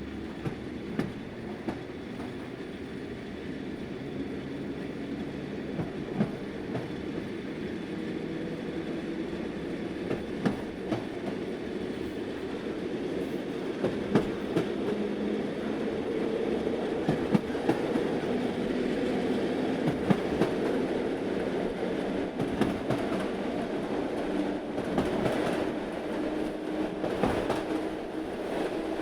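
Old train rolling along the track: a steady rumble with wheels knocking irregularly over the rail joints, growing gradually louder over the first half.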